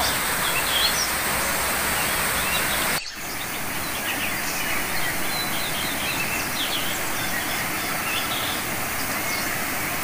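Waterfall's steady rush of water over rocks, with small birds chirping above it. The sound drops out for an instant about three seconds in and then carries on the same.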